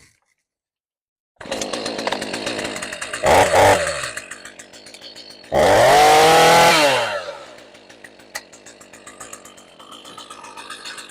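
Stihl MS212 two-stroke chainsaw starting from cold about a second and a half in, after being set on choke with the chain brake on. It is revved up twice, the second time longer and louder with the pitch falling away at the end, then settles to a steady idle.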